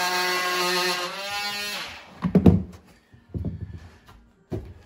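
A cordless power tool cutting plasterboard runs with a steady pitched hum, then winds down and stops about two seconds in. Several thuds and knocks follow as the cut strip of plasterboard is worked loose.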